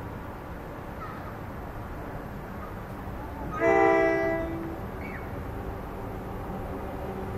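NJ Transit ALP-45DP locomotive's horn sounding one short blast of about a second, a chord of several notes, as the train approaches, over a steady low background rumble.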